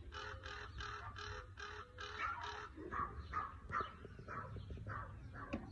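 A bird calling outdoors: a quick, even run of about eight calls at roughly three a second, then more scattered calls.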